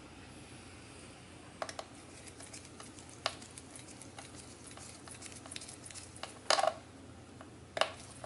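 Scattered sharp clicks and light metallic clinks of small parts and tools handled against a MacBook Pro's aluminium case during disassembly. The loudest are a double knock past the middle and another click near the end.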